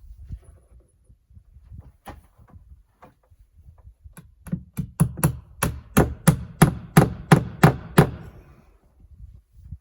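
Hammer striking: a few light knocks, then a quick, even run of about fifteen hammer blows at roughly four a second, starting about four seconds in and stopping just after eight seconds.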